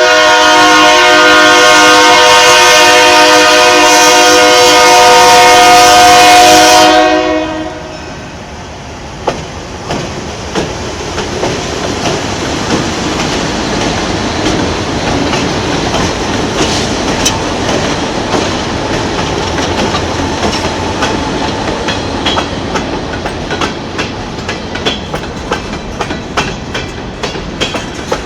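Locomotive air horn sounding one long multi-note chord for about seven seconds, then cutting off. The train then rolls past with a steady rumble and the clickety-clack of wheels over rail joints, the clicks coming faster toward the end.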